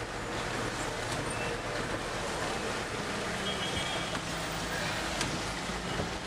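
Steady engine and road noise heard from inside a car crawling in slow, congested traffic on a wet road, with a low engine hum underneath.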